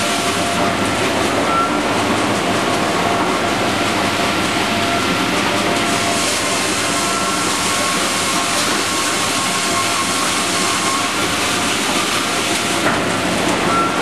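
Automated double-blade circular sawmill running: a steady, loud mechanical clatter of the machinery and roller and chain conveyors moving sawn boards, with faint steady whining tones over it and a single click near the end.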